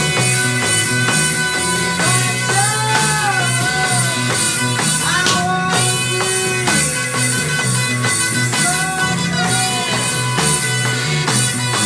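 Improvised blues-rock band jam: lead guitar playing phrases with bent, sliding notes over a bass line and a steady drum kit beat.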